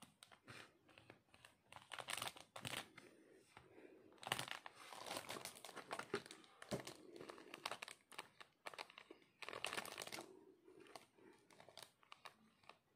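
Plastic sachets crinkling as they are handled, in faint, scattered rustles and small clicks.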